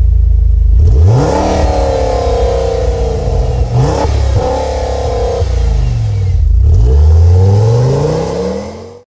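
Car engine revving: it revs up about a second in, climbs sharply again near four seconds, drops and rises once more in the second half, then fades out.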